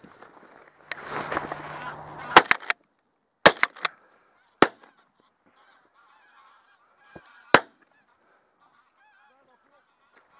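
Shotgun shots at a flock of greylag geese: a quick string of sharp cracks over about two and a half seconds, then a single shot about three seconds later, after a rustle as the hunter rises from the layout blind. Greylag geese honking faintly between the shots.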